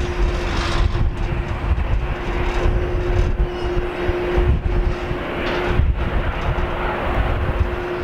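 Boeing 767-300 freighter's jet engines running at climb power during climb-out after takeoff: a steady broad jet rumble with one held tone running through it. Strong wind gusts buffet the microphone.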